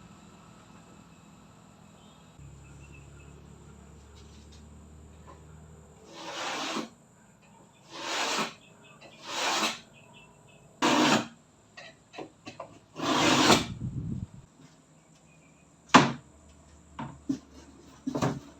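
Wood being handled: five separate rasping scrapes, each under a second, then a sharp knock and a few lighter clicks near the end.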